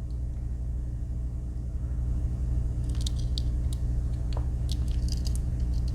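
Steady low hum with faint small clicks about three seconds in and again near the end, from a Victorinox Swiss Army knife's tools being handled and opened.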